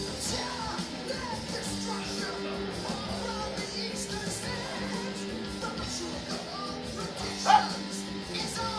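Rock music with guitar playing steadily, with one brief loud cry about seven and a half seconds in.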